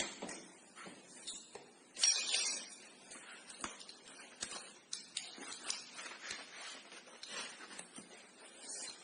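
Scattered light clicks and knocks of metal parts being handled: an air-conditioner evaporator and a flared copper tube being picked up and set against its fitting. The loudest knock comes about two seconds in.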